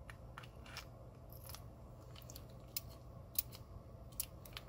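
Small metallic clicks and scrapes of an Abus 83AL/45 padlock being reassembled, its removable core and key being worked into the padlock body. About a dozen short, sharp clicks come at irregular intervals, the loudest about three and a half seconds in.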